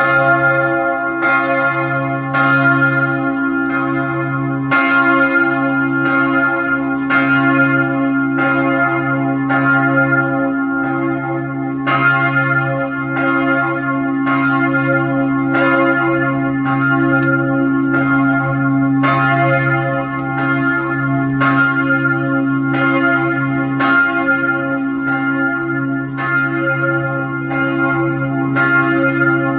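Church bells pealing, struck about once a second, each stroke ringing on over a lasting deep hum.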